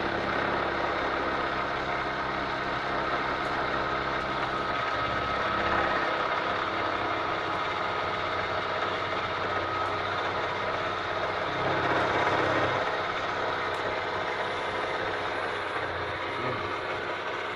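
Vertical milling machine running, its end mill cutting along the edge of a steel bar held in a vise: a steady motor hum with a thin steady tone from the cut, swelling a little about twelve seconds in.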